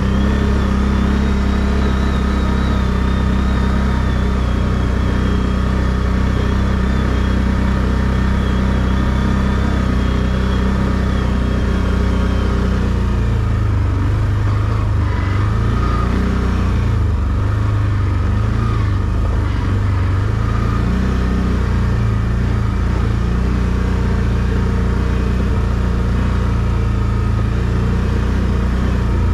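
ATV engine running steadily at low trail speed. A faint high whine sits over it for the first dozen seconds, and the engine note shifts about halfway through.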